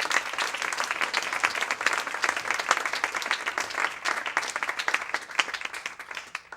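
Audience applauding, dense clapping throughout that cuts off suddenly at the very end.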